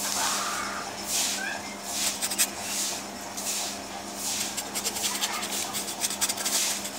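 Paintbrush stroking paint onto canvas: a run of scratchy swishes, roughly one a second, over a steady low hum.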